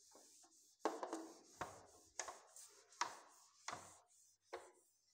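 Whiteboard eraser wiping marker off a whiteboard: a series of short rubbing strokes, about one every 0.7 seconds.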